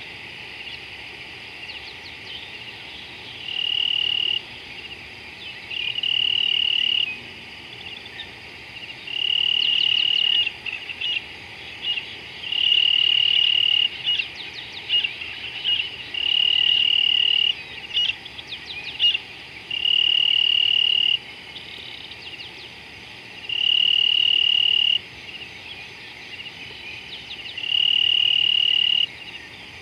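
Insects trilling at dusk: a high, steady trill comes in bouts of about a second, repeated every three to four seconds, eight times. It sits over a continuous high insect drone, with scattered short chirps in the middle stretch.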